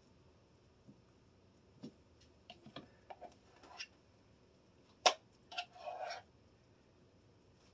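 Soft clicks and taps of a spoon against a plastic bowl while mashed potatoes are scooped out into a glass baking dish. One sharper click about five seconds in, followed by a short scrape.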